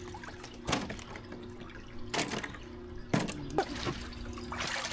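Water splashing and trickling, in several separate short splashes with dripping between them.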